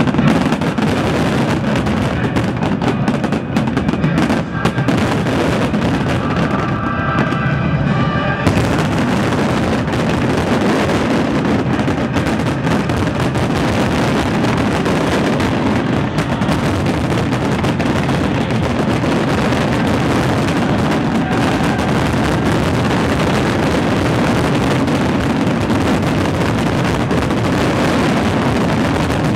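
Dense fireworks barrage: so many shells bursting and crackling at once that they run together into a steady, loud din, with the display's accompanying music underneath.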